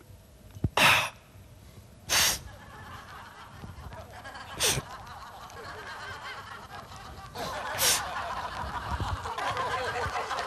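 Four short, sharp vocal bursts a couple of seconds apart, over a low murmur of voices that grows louder in the second half.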